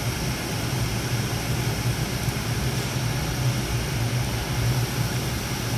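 TIG welding arc running a bead over mill-scaled steel square tubing: a steady crackling hiss over a low buzz. The mill scale is contaminating the weld pool, and the puddle struggles to stay stable.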